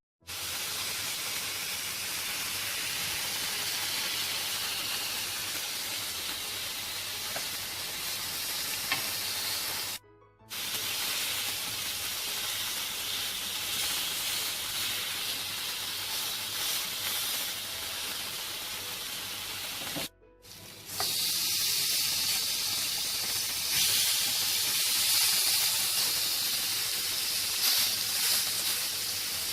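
Seasoned, oil-marinated chicken pieces sizzling on a hot grill pan: a steady hiss that cuts out briefly twice, about ten and twenty seconds in.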